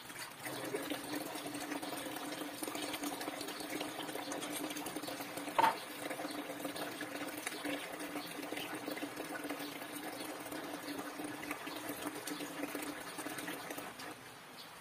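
Tap water running over soapy hands into a plastic basin during handwashing, with a steady hum underneath that stops near the end. One sharp knock about a third of the way through.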